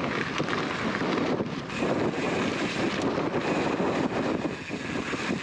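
Strong gusty wind buffeting the camera microphone as a mountain bike rolls along a dirt trail, a steady rushing noise that dips briefly near the end.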